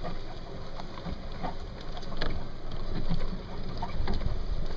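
Vehicle moving slowly over rough farm ground: a low rumble with wind on the microphone and scattered knocks and rattles, louder from about two seconds in.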